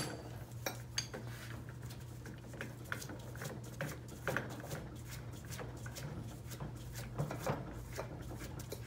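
Metal-on-metal clinks and knocks as a posi lock tool is fitted onto a CVT variator pulley. A sharp click comes at the start, then scattered lighter knocks over a steady low hum.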